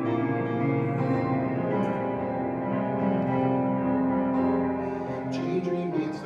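Electronic keyboard played with a piano sound: an instrumental passage of held chords and melody notes.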